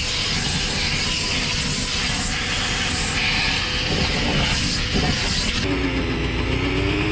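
Vacuum cleaner running with its hose sucking up dirt and debris from the floor around a toilet flange, a loud steady hiss. The suction cuts out about five and a half seconds in, leaving a lower steady hum.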